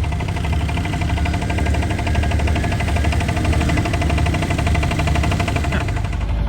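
Vehicle engine running steadily with a fast, even pulsing over a low rumble.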